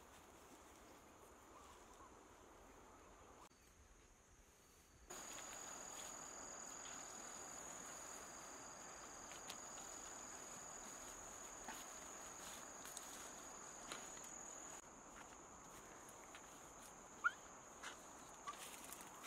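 Faint outdoor field ambience with an insect's steady high-pitched trill, which starts about five seconds in. A few soft ticks and rustles and one sharp click come near the end.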